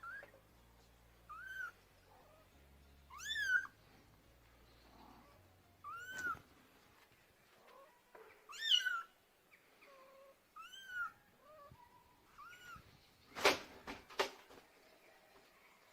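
Kittens meowing: short, high calls that rise and fall, one every second or two, calling for their mother. Two sharp knocks about three-quarters of the way through are the loudest sounds.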